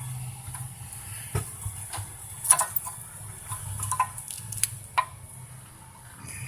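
Brake pads and caliper being handled, with scattered sharp metallic clicks and clinks, the loudest about two and a half seconds in, over a low steady hum.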